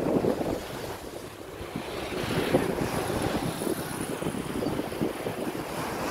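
Wind buffeting the microphone in gusts over the wash of sea waves breaking against the rocks.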